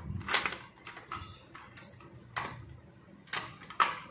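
Plastic clicks and knocks as the two halves of a mini portable sewing machine's plastic housing are worked apart by hand. There are several separate, irregularly spaced clicks, the loudest near the end.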